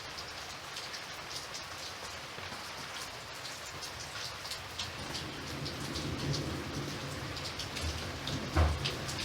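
Steady rain falling, with distinct drops ticking. About halfway through, a low rumble of thunder starts to build.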